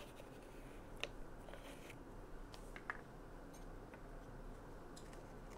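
A few faint, sharp clicks and scrapes of a small plastic spice container's top being worked off by hand, over a steady low hum.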